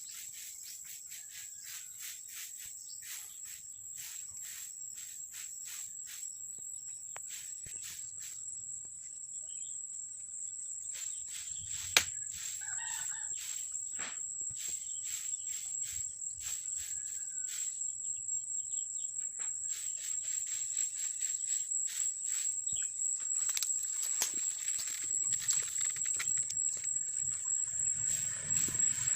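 A steady high-pitched insect drone, with scattered clicks and rustles, one sharp click about twelve seconds in and a brief chicken call just after it.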